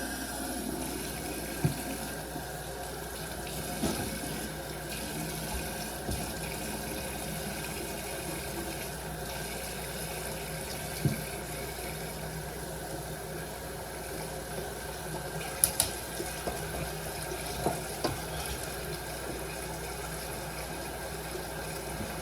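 A steady rushing noise, like running water, with a few short knocks and clicks scattered through it.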